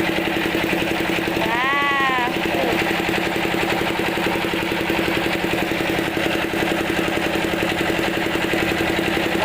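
A small engine running steadily, with a fast even pulse. About two seconds in, a brief tone rises and falls.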